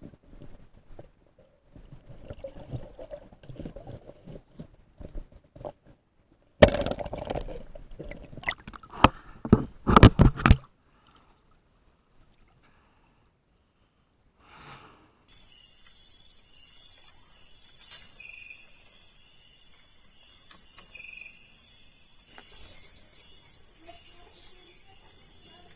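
Water splashing and sloshing with sharp knocks, loud for about four seconds before cutting off abruptly, then after a few seconds of dead silence a steady high chorus of crickets and other night insects.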